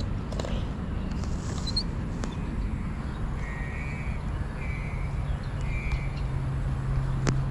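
A bird calls three times, short calls about a second apart, over a steady low rumble. A single sharp click comes near the end.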